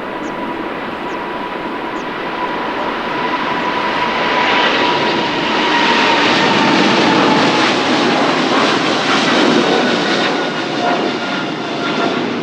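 Boeing 777-300ER's twin GE90 turbofan engines at takeoff power: a loud jet roar that swells to its loudest about eight seconds in and then eases a little, with a high whine that slowly slides lower in pitch.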